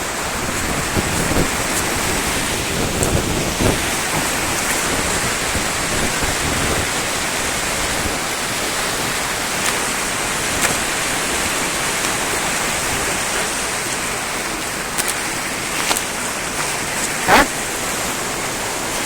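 River water rushing steadily. A few light clicks sit on top, and one sharper knock comes near the end.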